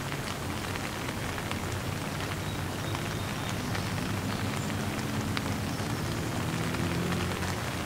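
Heavy downpour of rain falling steadily: a dense, even hiss with many separate drop ticks.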